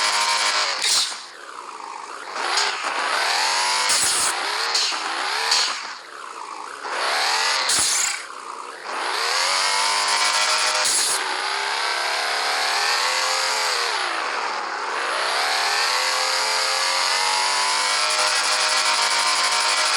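Turbocharged Porsche engine, fitted with upgraded turbos for about 892 hp, accelerating hard and shifting up through the gears. Its pitch climbs and drops again and again, with short sharp cracks at several of the drops.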